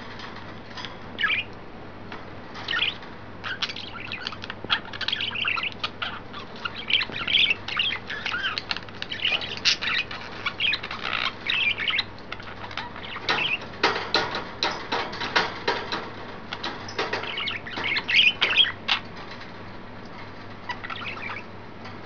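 Pet budgerigars chattering and chirping in quick, busy bursts, with wing flapping among them. The chatter thins out near the start and the end.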